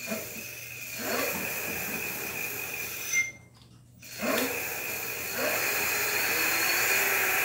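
Electric bike's rear hub motor whining as it spins the unloaded wheel up under throttle. About three seconds in the new disc brake stops the wheel with a brief squeak; about a second later the motor spins it up again, the whine rising and then holding steady.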